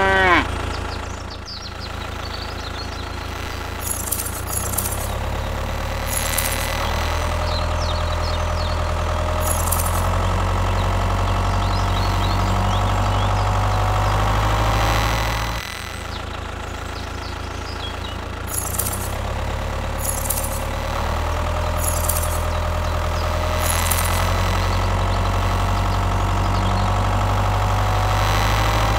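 Tractor engine running steadily with a low hum and a faint rising whine, used as the soundtrack for a toy tractor; it breaks off briefly and starts again about halfway through.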